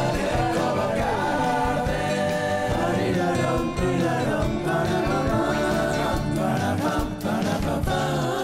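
Theme music for a TV programme's opening titles, with voices singing over it.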